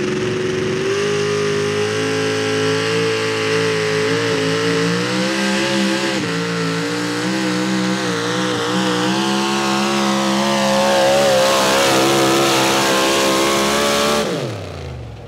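A modified pulling truck's engine at full throttle under the load of the sled. The revs climb and step up about a second in, hold high with a wavering pitch as the truck works down the track, then wind down steeply near the end as the throttle comes off.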